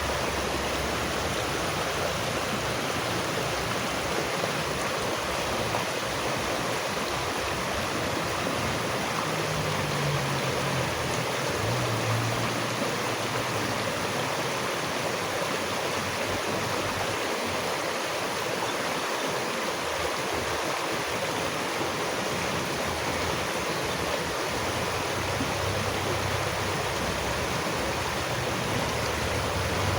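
Water rushing steadily, like a flowing stream, as an even, unbroken hiss.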